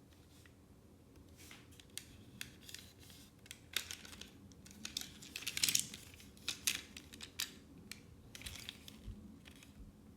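Plastic toy train parts and packaging being handled during unboxing: irregular light clicks and short crinkling rustles, busiest around the middle.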